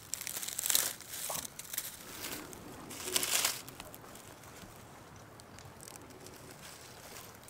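Dry fallen leaves crinkling and rustling as hands brush through leaf litter. There are two louder bursts, one just under a second in and one about three seconds in, then a softer rustle.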